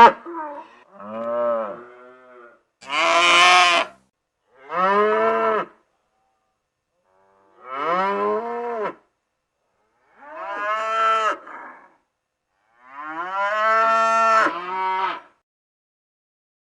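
Cattle mooing: about six separate moos with short pauses between them. The moo about three seconds in is the loudest and harshest.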